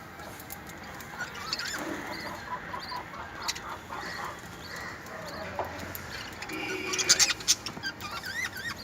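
Small pet parrots (love birds) chirping and chattering while they feed: many quick high calls, some rising and falling, mixed with scattered clicks, and a busier, louder burst of chatter about seven seconds in.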